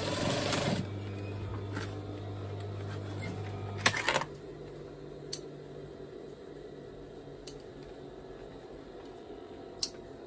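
Juki DDL-8700 industrial lockstitch sewing machine finishing a short run of stitching through denim, then its motor humming steadily until it cuts off with a clack about four seconds in. A few scattered sharp clicks follow as the fabric and machine are handled.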